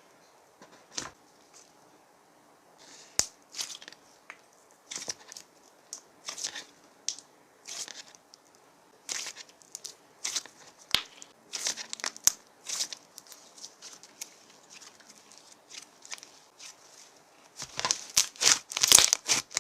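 Slime being squished and poked by hand, making irregular crisp crackles and pops that come thicker and louder near the end.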